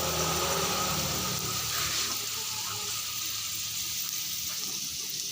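Pieces of cassava deep-frying in hot oil, a steady crackling sizzle. A low hum under it fades out about two seconds in.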